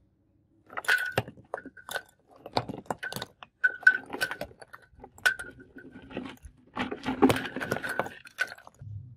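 Lumps of charcoal tipped from a plastic cup into a brick forge trough, clattering onto the bricks and a perforated steel pipe. There are many sharp clinks, several with a short bright ring, and they come thickest near the end as the rest of the cup pours out.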